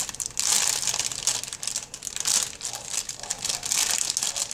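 Thin clear plastic bag of pancake mix crinkling in a string of short rustles as fingers twist and tug at its top to open it.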